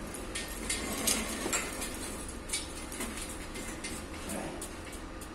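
Irregular metallic knocks and clicks from a car engine being hoisted out of its engine bay, thickest in the first second and a half, over a steady low hum.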